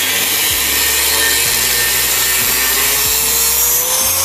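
Black+Decker G650 4-inch (100 mm) angle grinder with a cutting disc slicing through a steel angle bar, a loud, steady grinding hiss. The motor's whine climbs in pitch near the end as the disc comes free of the cut.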